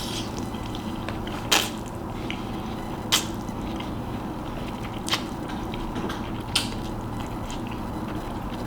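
A person eating close to the microphone: chewing and mouth sounds, with about five short, sharp clicks spaced a second and a half to two seconds apart, over a steady low hum.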